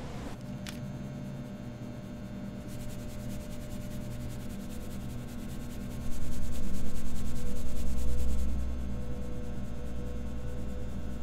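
Steady low mechanical hum of laundromat washing machines running, with a single click about a second in and a louder low rumble from about six seconds in to about eight and a half.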